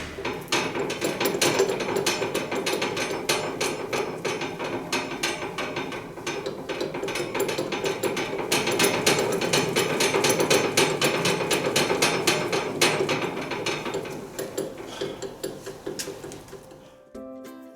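Rapid, irregular metal knocking and rattling of hand-tool work on rice huller parts during reassembly. It goes on steadily and fades out near the end.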